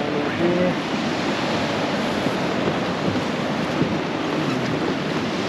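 Steady rush of flowing river water, mixed with wind on the microphone.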